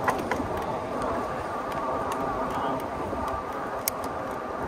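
Steady riding noise from a moving e-bike: wind and tyre rumble on the camera, with a few sharp clicks, several near the start and one about four seconds in.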